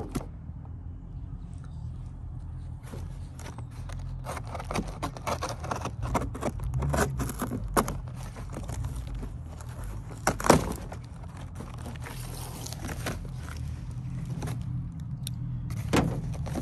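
Handling a large taped cardboard box on a car's hood: a run of short scrapes, taps and crinkles, the loudest about ten seconds in, over a steady low rumble.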